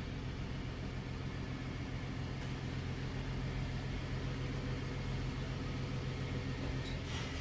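Steady low mechanical hum with a few faint clicks near the end.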